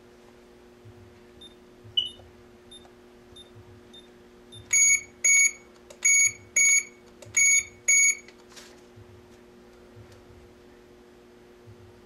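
Wireless GSM alarm system beeping: one short chirp about two seconds in, then three pairs of short, high beeps between about five and eight seconds in, over a faint steady hum.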